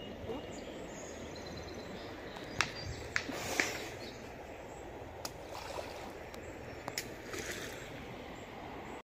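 Outdoor riverbank ambience: a steady background hiss with faint bird chirps and a few sharp clicks scattered through.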